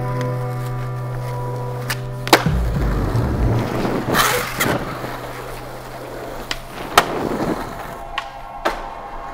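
Skateboard wheels rolling on asphalt, with a few sharp clacks of the board, over background music.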